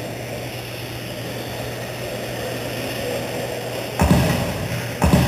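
Electric radio-controlled 2wd stadium trucks racing on an indoor dirt track: a steady hum, then two loud thuds about four and five seconds in, a second apart.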